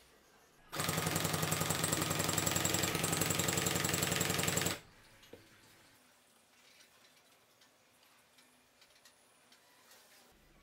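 Cordless drill driving a homemade crank-and-slide whetstone sharpening jig: the motor runs and the stone carriage clatters back and forth in a fast, even rhythm for about four seconds, then stops. After that only a few faint light clicks are heard.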